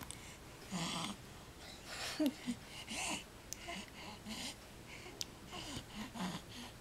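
Baby breathing noisily while feeding, a breath about every half second to a second, mixed with small grunts and squeaks and a few sharp clicks.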